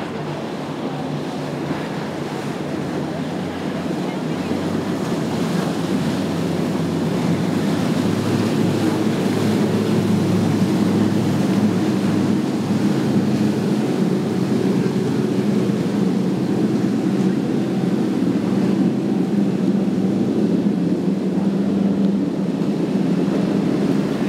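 Twin outboard engines of a center-console boat running at speed, with water rushing and spraying off the hull and some wind on the microphone. The sound grows louder over the first ten seconds or so, then holds steady.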